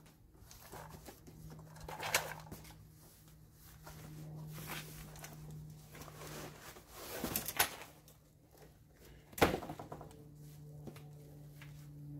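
Cardboard box and its packing being opened and handled: scattered rustles and knocks, the sharpest about nine and a half seconds in, over a steady low hum.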